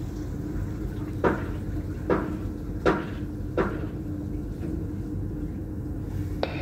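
Four sharp knocks about three-quarters of a second apart over a steady low hum, with a short click near the end.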